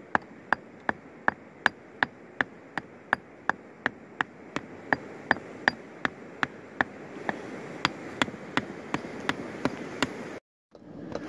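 Geologist's rock pick striking a garnet-bearing boulder in a steady rhythm, about three sharp metal-on-stone hits a second, chipping at the host rock to free the garnets. The sound cuts out briefly near the end, and lighter taps follow.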